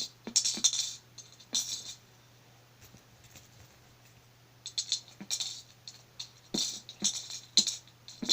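Coins rattling and clinking inside a piggy bank as it is shaken, in several short bursts with a pause of a couple of seconds in the middle.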